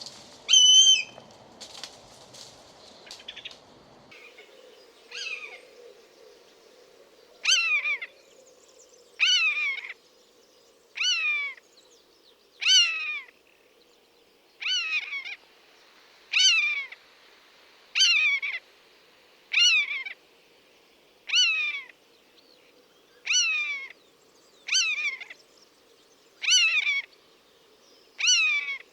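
Common buzzard repeating its mewing call, each call a short note that falls in pitch, about one every second and three quarters. A few other, less regular calls come in the first few seconds.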